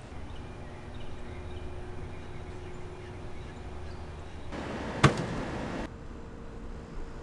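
A single sharp crack about five seconds in, over low background noise.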